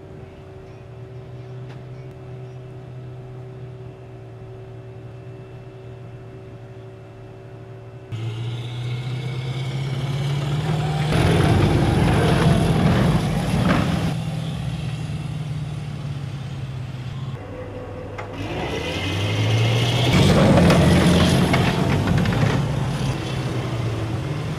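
Amphibious assault vehicle's diesel engine running, at first at a steady idle. About eight seconds in it becomes much louder, and it revs up twice along with a loud rush of churning water and spray as the vehicle drives through the water.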